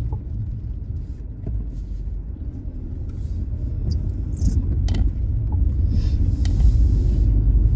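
Car interior road noise while driving on a wet road in the rain: a low rumble that grows louder toward the end, with a brief hiss near the end.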